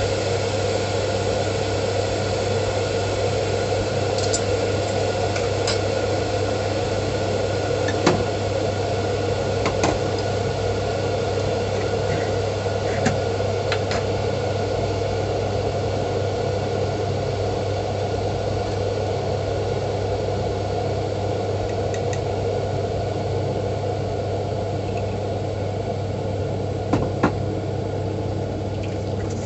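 Electric kettle with its water at a rolling boil: a steady bubbling rumble with occasional sharp pops, over a constant low hum, easing slightly near the end. The steam thermostat has not yet cut the heater off.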